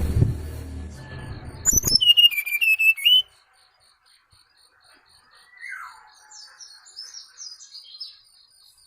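Bird lure calls for the SRDC bird: a loud run of quick whistled notes about two seconds in, then a single falling whistle and a string of high chirps, over a faint steady pulsing high note.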